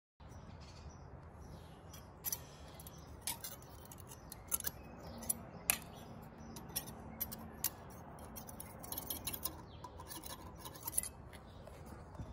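Irregular light clicks and taps with some rubbing, over a low steady background hiss. The clicks come scattered every second or so and cluster more densely near the end.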